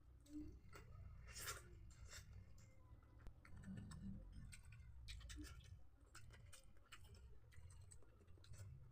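Faint chewing with scattered small mouth clicks from someone eating, over a low steady hum.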